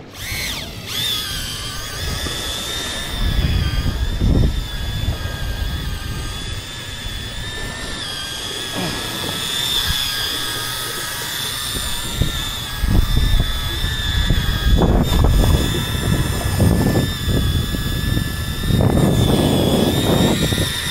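Outboard motor running steadily at speed, a high even whine that climbs briefly at the start, with wind buffeting the microphone.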